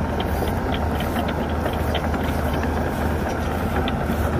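Heavy diesel engine of construction machinery running steadily with a deep, even hum, with faint scattered clicks over it.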